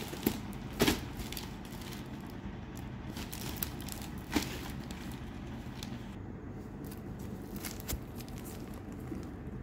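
Plastic-wrapped paper parcel being handled and torn open by hand: rustling and crinkling with a few sharp cracks, the loudest about a second in.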